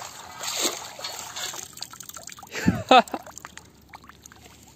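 Water draining and dripping out of a perforated stainless-steel sand scoop as it is lifted out of shallow water, ending in scattered drips. A short, louder sound comes about three seconds in.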